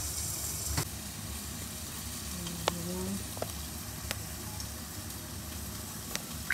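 Freshly grilled yellowtail jaw sizzling steadily on the wire rack of a fish-grill drawer, with a few sharp clicks and pops.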